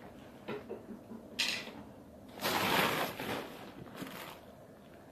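Rustling and crinkling of bags and wrapping as things are rummaged through and lifted out of an open suitcase, with a few short rustles, then the loudest stretch lasting about a second from about two and a half seconds in.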